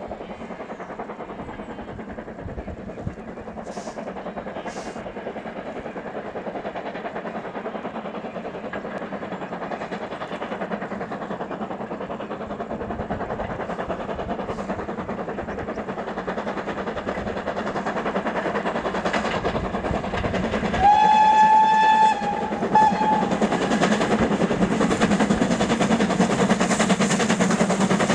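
BR Standard Class 2MT 2-6-0 steam locomotive 78019 working hard up a gradient with a train, its exhaust growing steadily louder as it approaches. About 21 seconds in it sounds its steam whistle, one steady note lasting about a second and a half.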